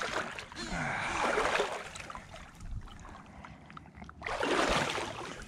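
Someone wading through flooded brush: water sloshing and swishing around the legs in two surges, one about a second in and a louder one just after four seconds in.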